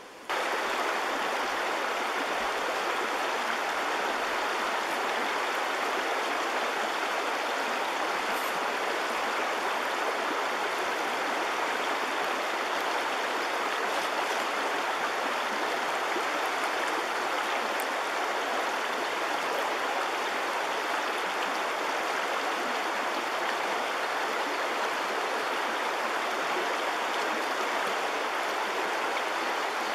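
Shallow stream running over stones and gravel, a steady rush of water that sets in abruptly just after the start.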